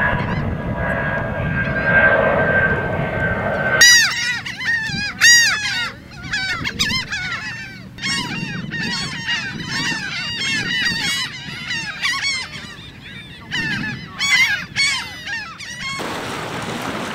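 A jet airliner passing overhead as a steady rushing roar with a thin whine, cut off about four seconds in by a chorus of laughing gulls calling: long runs of quick, arched 'ha-ha-ha' laughing notes, some loud and close. Near the end the calls stop and wind rushes on the microphone.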